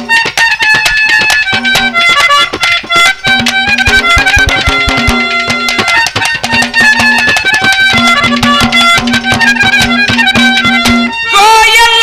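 Haryanvi ragni folk band playing an instrumental interlude: held melody notes over fast, dense drumming. About eleven seconds in, a louder, wavering melody line takes over.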